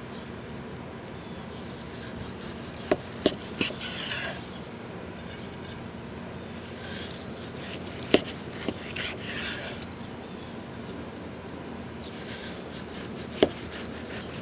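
A large kitchen knife slicing through a smoked picanha roast's seasoned crust on a wooden cutting board. There are short rasping strokes as the blade saws through the bark, and a few sharp knocks as the knife meets the board.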